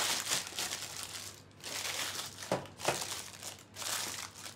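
Scrunched baking paper crinkling in bursts as it is pressed by hand into a loaf tin, with two sharper crackles about halfway through.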